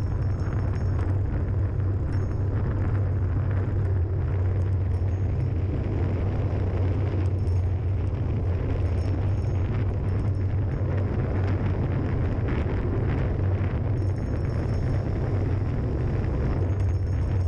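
Wind rushing over the microphone during a fast downhill run on a paved road, a steady low roar with no letup.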